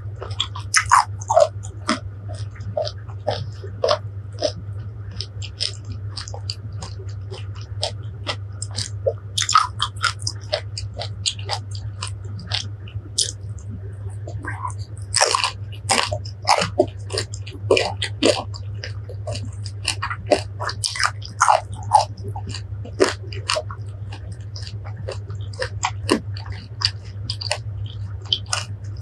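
Close-miked biting and chewing of firm green fruit: irregular crisp crunches and wet clicks, heaviest in the second half, over a steady low hum.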